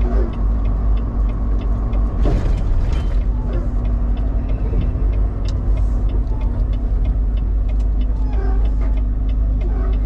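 Semi-truck engine droning steadily inside the cab while driving at low speed, with a regular tick about twice a second from the turn signal.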